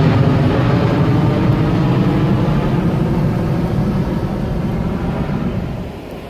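Jet airliner passing overhead: loud, steady jet engine noise that fades gradually as it flies off, dropping away near the end.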